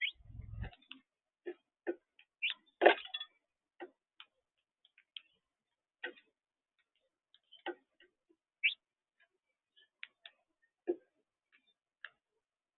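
Irregular light taps and clicks, scattered a few a second at most with quiet between, from birds pecking and shuffling at a feeder.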